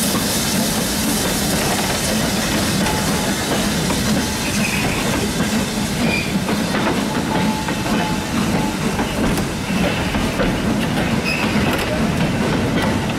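A train of old wooden goods vans rolling slowly past, its wheels running steadily over the rails. Brief high squeals come from the wheels now and then.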